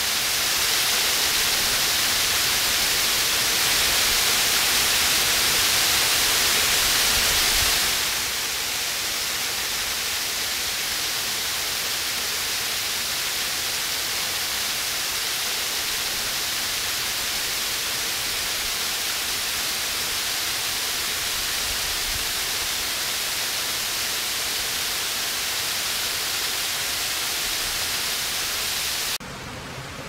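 Small man-made waterfall pouring over rocks into a stream: a steady rush of falling water, a little louder for the first several seconds. About a second before the end it drops suddenly to a quieter, gentler stream flow.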